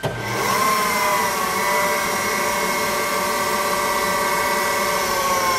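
Ziersch & Baltrusch FS 4-20T profile grinder's bare spindle switched on: a whine that climbs to speed within the first second, then runs steadily, and starts to drop in pitch near the end as it begins to slow.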